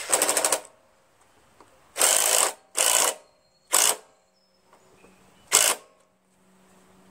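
Black+Decker cordless drill/driver running in about five short bursts of a second or less, driving in the bolts that hold the air-cleaner housing on a Honda GCV160 engine.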